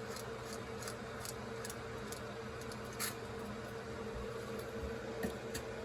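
Faint, sharp clicks, about two or three a second, from the clockwork of a vintage wind-up tin mouse toy as its key is turned to wind the spring.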